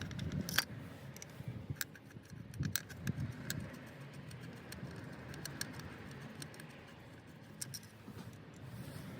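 Scattered small metallic clicks and clinks at irregular intervals, from hand tools and parts being handled while the engine control module is taken out.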